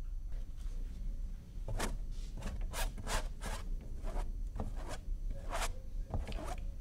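A paintbrush's bristles scrubbing across a canvas in a run of about ten quick, scratchy strokes, working oil paint on.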